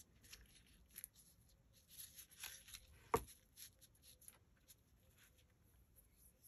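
Faint rustling and light taps of paper cut-outs being handled and pressed onto a paper-covered board, with one sharper tap about three seconds in.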